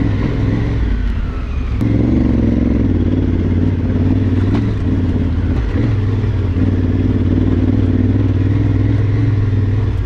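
Adventure motorcycle engine running steadily while riding a rough, rocky dirt trail. The throttle eases off about a second in and opens again just before two seconds, with an occasional knock from the bike over rocks.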